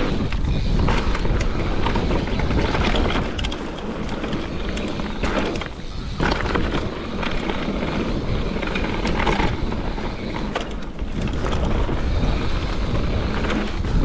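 Mountain bike rolling fast down a dirt trail: wind buffeting the microphone over the rumble of the tyres on dirt, with scattered clicks and rattles from the bike. It eases briefly twice in the middle.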